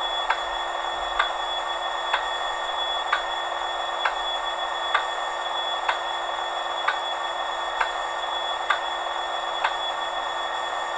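Hornby HM7000 TXS decoder's Class 66 sound profile through a small sugar-cube speaker: a steady engine hum with the Spirax valve ticking sharply about once a second, eleven ticks in all.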